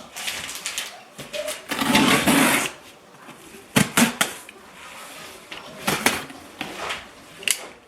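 A cardboard shipping box being opened and handled, with a tearing noise about two seconds in and then a few sharp knocks and rustles.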